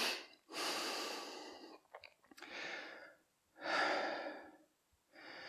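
A man breathing hard, about four deep breaths one after another every second and a half or so, as he recovers from a 30-second high-intensity interval.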